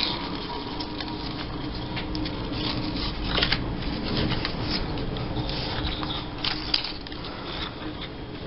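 Paper strips rustling and sliding on a tabletop as hands pick them up and lay them down, with scattered light crinkles and taps, a couple of them louder. A low steady hum runs underneath.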